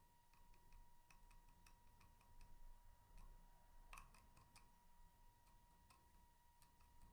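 Near silence: faint, irregular short clicks over a steady faint high-pitched tone.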